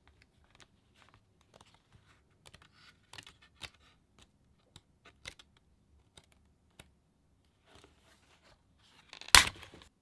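Pages of a holographic paper pad handled and leafed through, with soft rustles and light taps, then a short loud rip about nine seconds in as a sheet of holographic paper is torn from the pad.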